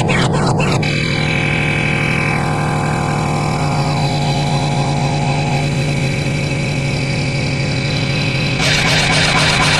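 A string of layered sound effects over a steady engine-like hum. Rapid even clicking stops about a second in, then a falling tone sounds, and near the end a louder hiss with fast clicking comes in.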